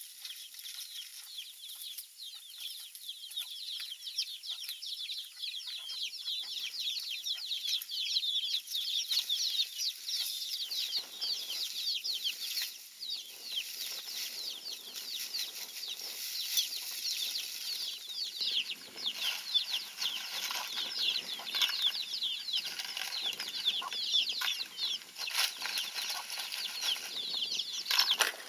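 Chicks peeping continuously, many short high falling peeps overlapping one another. Soft rustling and scraping join them in the second half.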